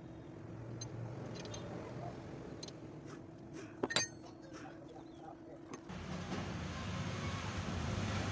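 Light metal clinks from hand work on the engine's crankshaft and connecting rods, the sharpest pair about four seconds in, over faint background noise that grows louder after about six seconds.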